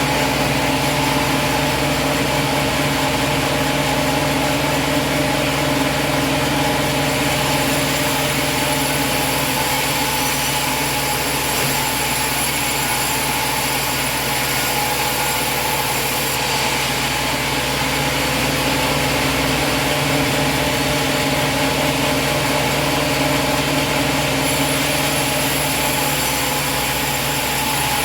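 An engine running steadily at a constant speed, one even drone whose pitch does not change.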